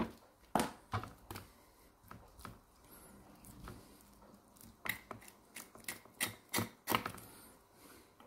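Knife tapping and scraping against a plastic cutting board while a raw chicken thigh is being deboned: a series of short sharp clicks, a couple near the start and a quick run of about six between five and seven seconds in.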